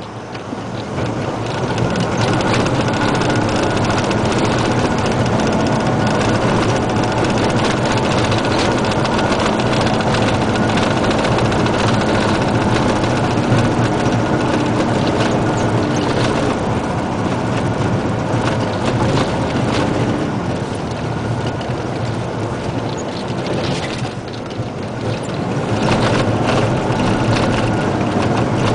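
Isuzu Giga dump truck's 380 PS diesel engine running under way on a gravel road, heard from inside the cab, with road and cab rattle mixed in. The engine eases off briefly just after the start and again about 24 seconds in, then pulls back up.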